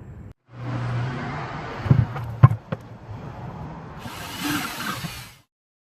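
Work on hard plastic 5-gallon buckets: scraping and handling noise with two sharp knocks, the second the loudest, then a brief hiss before the sound cuts off.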